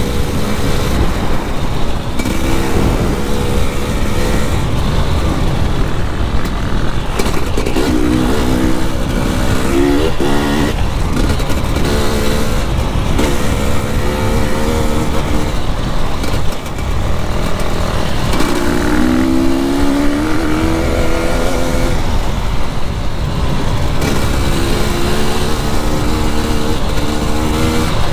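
KTM 300 EXC two-stroke enduro bike under way, its revs climbing and dropping again several times as the rider works the throttle, with wind buffeting the helmet microphone.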